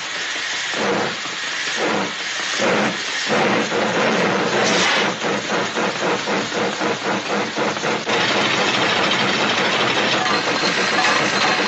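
Steam-locomotive sound effect: hissing chuffs that start slow, speed up into a fast rhythmic chugging from about four seconds in, and blur into a steadier hiss near the end.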